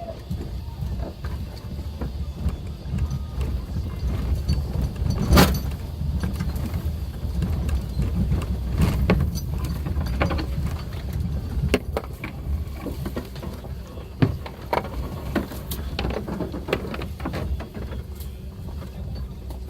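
Suzuki Jimny driving on a rough forest track: a steady low rumble from the engine and the ground, with frequent knocks and rattles as it goes over bumps and stones, the loudest knock about five seconds in.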